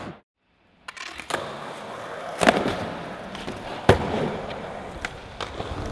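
Skateboard wheels rolling across a smooth skatepark floor, with sharp clacks of the board hitting the ground, the loudest about two and a half and four seconds in. The sound drops out completely for about the first second.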